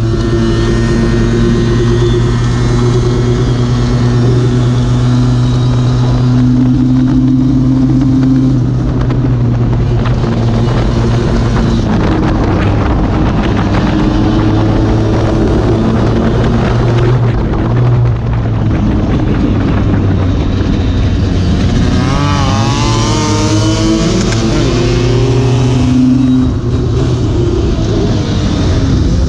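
Lambretta RB20 two-stroke racing scooter engine running hard at high revs, its pitch shifting up and down with throttle and gear changes, with a brief dip partway through, heard from an onboard camera at speed.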